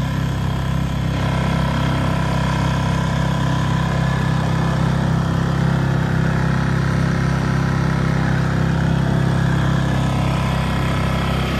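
Small dinghy outboard motor running at a steady speed, pushing an inflatable dinghy along. The motor is running again after having refused to work.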